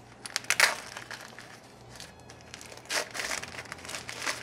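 Paper wrapping around plant cuttings crinkling and rustling as it is unwrapped by hand, in short irregular crackles, loudest about half a second in and again around three seconds.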